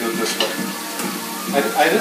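Food sizzling in frying pans over gas burners, a steady frying hiss.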